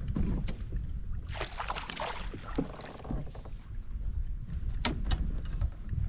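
Water splashing and a few sharp knocks around a fishing kayak, over a low rumble of wind on the microphone.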